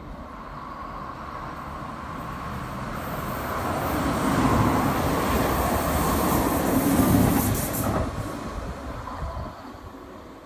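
Red RBS electric commuter train passing along the platform: its rumble and wheel noise build as it comes in, peak about halfway through as it goes by close, then fade as it runs on.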